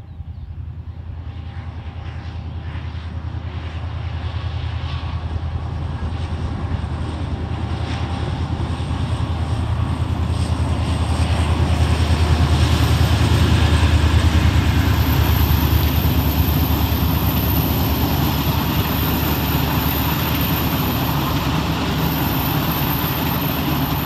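ONCF DH 350-class diesel-hydraulic locomotive hauling a passenger train past: a low engine drone that grows louder as the train approaches, peaks about halfway through, and stays loud as the coaches roll by on the rails.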